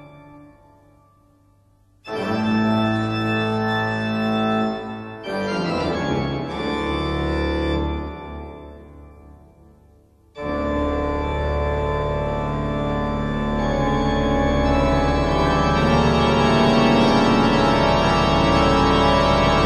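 Background music of long, sustained organ chords. A chord fades away at the start. New chords come in about two seconds in and again near five seconds, dying away by about ten seconds. Then a full chord enters and holds, growing slightly louder to the end.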